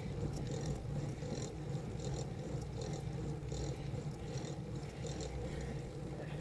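Steady low rumble of wind and road noise on a bicycle-mounted camera's microphone while riding, with light high ticks about two to three times a second.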